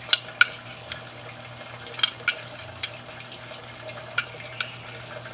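Chicken feet cooking in soy sauce and vinegar in a pan: a steady hiss of sizzling, bubbling liquid, with a few sharp clicks scattered through it.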